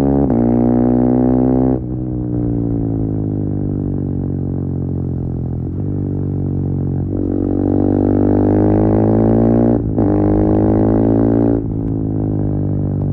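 KTM 390 Duke single-cylinder engine through an Akrapovic slip-on exhaust with the catalytic converter removed, under way: it pulls with rising pitch, with quick gear-change breaks just after the start and about ten seconds in. The throttle closes sharply at about two seconds and again near the end, and the engine note sinks and then climbs as it accelerates again.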